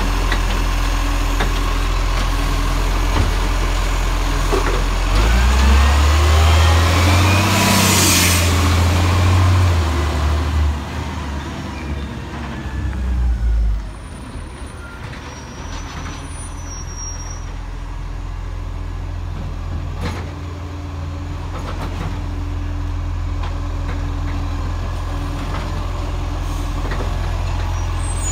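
Side-loader garbage truck's diesel engine revving up for several seconds while the hydraulic lifting arm tips a wheelie bin into the hopper, with a short hiss of air partway through. The engine then runs more quietly and steadily as the truck moves on to the next bins.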